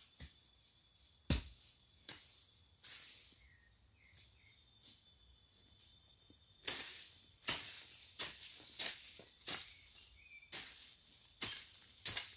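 Hoe striking and scraping dry soil and leaf litter while ground is worked by hand. One sharp stroke about a second in, then, from about halfway, a run of short rasping strokes about every half second.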